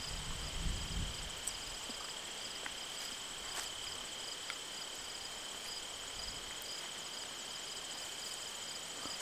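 Crickets trilling steadily in a high, pulsing chorus, with a few faint clicks and a brief low rumble in the first second.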